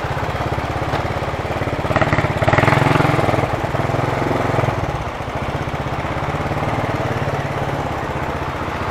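Motorcycle engine running at low speed with a steady putter as the bike creeps along and pulls up to park; it picks up briefly about two seconds in.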